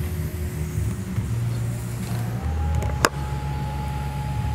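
TIG welding arc tack-welding a steel olet onto a pipe over a steady low machine hum. A steady high tone comes in about two and a half seconds in, and there is a single sharp click just after it.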